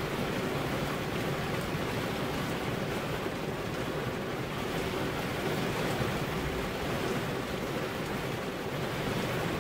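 Heavy rain falling steadily, an even continuous rushing hiss with no thunder or breaks.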